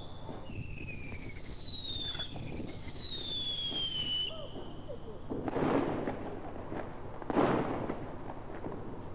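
Fireworks going off: two long whistles that fall steadily in pitch, then two bangs about two seconds apart, the second the louder.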